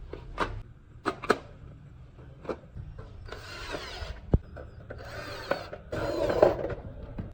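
Workshop tool work: a few sharp knocks and clanks, then three short runs of a power tool such as a drill, each about a second long.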